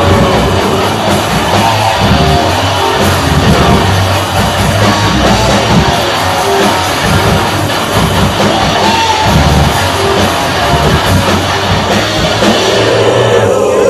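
Death metal band playing live: distorted electric guitars, bass and drum kit at full volume.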